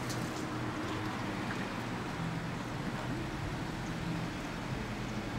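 Steady city street traffic noise: a low, even rumble of vehicles idling and passing.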